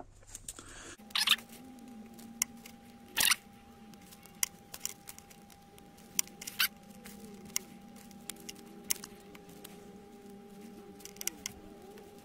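Small, irregular clicks and scratches of hand work: a metal pick hooking two wires out through a hole in the braided metal shield of a sensor cable. A steady low hum starts about a second in and runs underneath.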